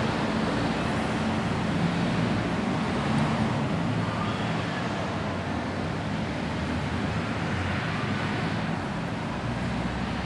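Steady background rumble with an even hiss, with no distinct events.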